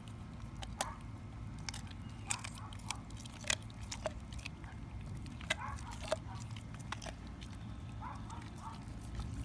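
Young pit bull–boxer dog chewing a raw chicken leg quarter: irregular sharp crunches and clicks of teeth on bone and meat, over a steady low rumble in the background.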